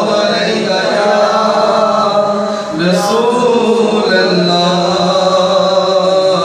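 A man chanting a devotional naat solo into a handheld microphone, in long held melodic lines, with a short breath about two and a half seconds in.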